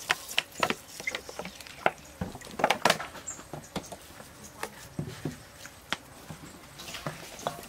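A run of irregular sharp clicks and taps, several close together about two and a half to three seconds in, the rest scattered.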